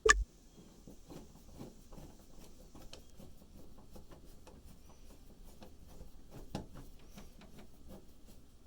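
Hand screwdriver backing out a doorknob's mounting screws: a knock at the start, then a long run of small clicks and scrapes, with a louder knock about six and a half seconds in.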